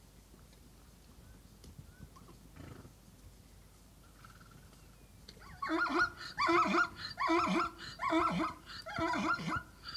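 A zebra calling: about halfway through, a run of about six short, pitched calls comes in quick succession, each dipping low at its end.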